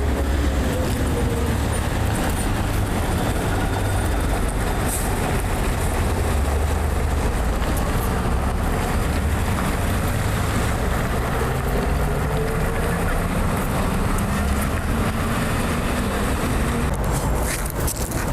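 Road traffic: a motor vehicle's engine runs close by with a heavy, steady low rumble, its pitch slowly rising and falling as it changes speed.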